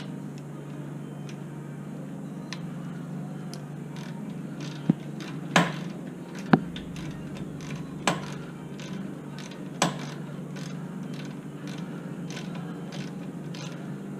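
Hand tools working on a brake fitting: a ratchet wrench clicking in short strokes, with several sharp metallic clinks, over a steady low hum.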